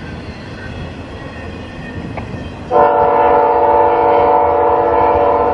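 Double-stack intermodal freight train rolling past with a steady rumble. About three seconds in, a locomotive air horn starts up suddenly, loud, sounding a steady multi-note chord that holds to the end.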